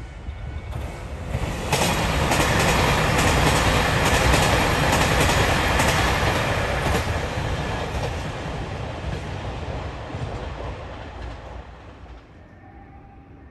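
Multi-car diesel express train passing at speed, its wheels clicking rapidly over the rail joints. The noise swells about two seconds in and fades away over the last few seconds.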